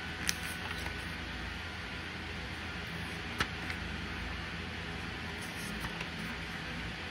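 Steady hiss with a low hum underneath, broken by two short sharp clicks, one just after the start and one about three and a half seconds in.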